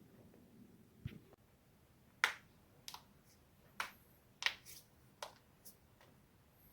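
Spinal joints cracking: a series of about seven or eight sharp, separate pops at irregular intervals, the loudest a little over two seconds in.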